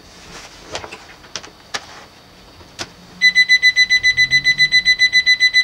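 A few clicks of plugs and handling, then, about three seconds in as power is applied, a loud, shrill electronic alarm starts beeping rapidly, about seven pulses a second.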